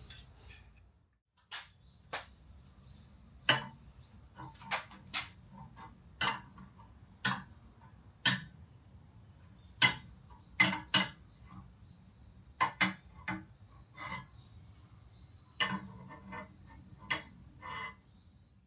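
Irregular sharp clicks and knocks of hard parts being handled, about twenty over the stretch, some louder, a few in quick pairs, over a faint low hum.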